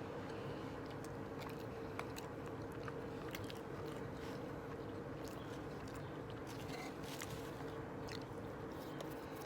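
Close-miked chewing and biting of a McDonald's burger, soft wet mouth sounds with scattered small clicks, over a steady low background hum.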